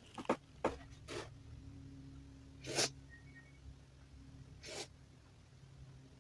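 A person sneezing repeatedly in a sneezing fit brought on by chhinkni sneezing powder. There are about five short, sudden sneezes: two quick ones in the first second, another just after, the loudest near three seconds in, and a last one near five seconds.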